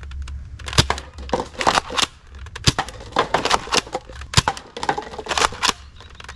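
A toy blaster's plastic mechanism clicking and clacking as it is handled and worked: a dozen or so sharp clicks at irregular intervals, over a low steady hum.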